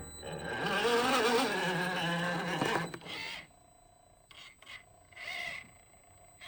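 Background music ending about three seconds in, followed by a few short rasping, scraping bursts with quiet gaps between them.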